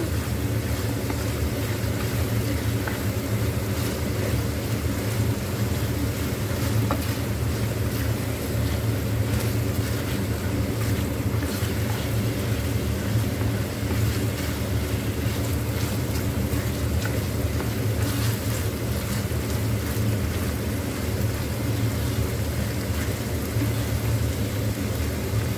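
Chicken pieces sizzling and crackling in hot oil in a frying pan, stirred and scraped with a plastic spatula, over a steady low mechanical hum that is the loudest sound throughout.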